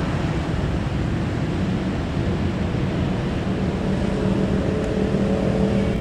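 Diesel locomotive approaching slowly, its engine running with a steady low rumble; a low engine note grows stronger over the last few seconds.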